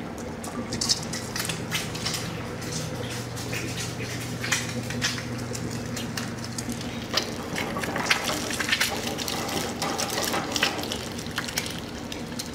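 An egg frying in smoking-hot oil in a small frying pan, sizzling with many sharp, irregular crackles and pops, meaning the oil is hot enough to crisp the egg's edges. A low steady hum runs underneath for the first half.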